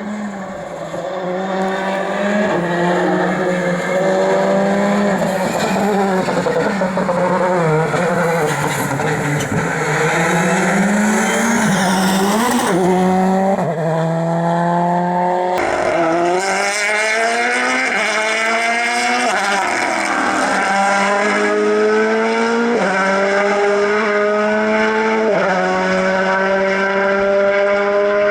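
Rally car engines under hard acceleration, revving up and dropping back again and again through gear changes. There is one sharp crack just past halfway.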